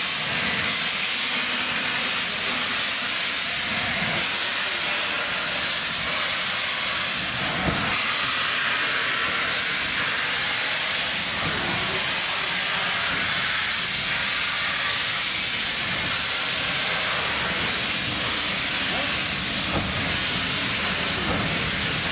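Steam hissing steadily from an LNER A4 steam locomotive.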